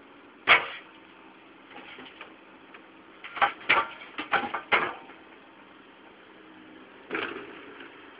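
Excavator bucket smashing into a caravan's body: sharp crashing hits, the loudest about half a second in, a quick run of about five between three and five seconds, and one more near the end. Under them runs the excavator's steady engine hum.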